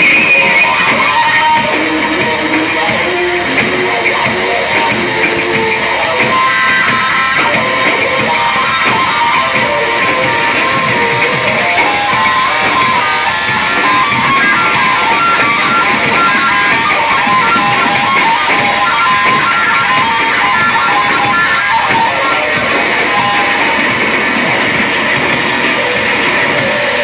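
A bass-and-drums duo playing loud live noise rock: fast, repeating runs on an electric bass guitar over a drum kit, with no break.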